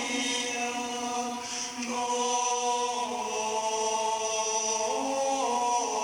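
Gregorian chant sung by monks in unison: a single slow melodic line of long held notes moving by steps.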